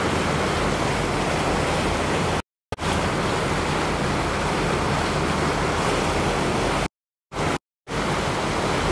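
Steady rushing wind and water noise aboard a moving river tour boat, with a low steady hum beneath. The sound cuts out to dead silence briefly about two and a half seconds in and twice more around seven seconds in: dropouts in the live-stream audio.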